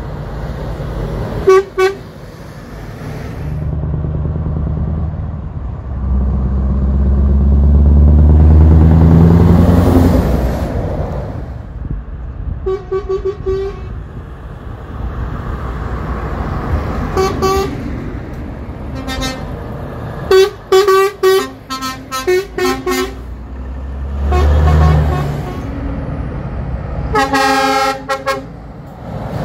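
Lorries sounding multi-note air horns as they pull past: a short blast about a second and a half in, single blasts and then a quick run of short toots in the middle, and a longer blast near the end. In between, a heavy truck's diesel engine pulls past with its pitch climbing, the loudest part.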